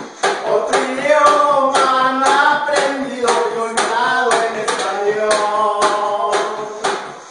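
Norteño-style music: an accordion plays the melody over a steady beat of sharp percussion hits.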